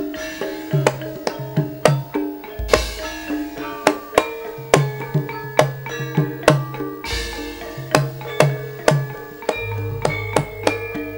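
Javanese gamelan playing: frequent kendang hand-drum strokes over the ringing tones of bronze metallophones and gong-chimes, with two deep low strokes about three and seven seconds in.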